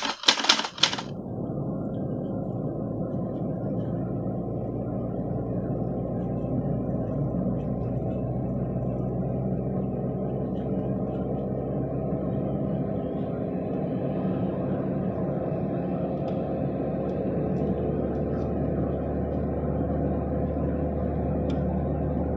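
Steady engine and road rumble heard from inside a moving car's cabin. A brief burst of noise in the first second.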